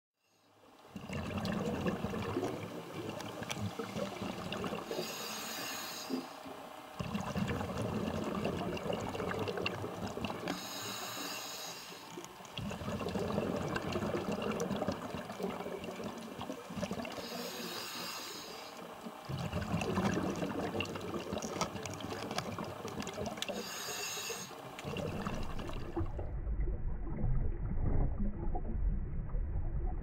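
A scuba diver breathing through a regulator underwater, in four slow breath cycles. Each breath is a short hiss of inhalation followed by a longer low bubbling rumble of exhaled air.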